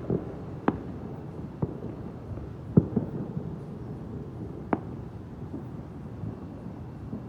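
Fireworks going off: about half a dozen sharp bangs at uneven intervals over a steady low rumble, the loudest nearly three seconds in.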